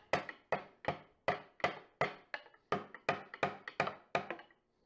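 Rubber mallet lightly tapping a teak chair frame, alternately above and below a loose glued dowel joint, in a steady run of about three taps a second to knock the joint apart.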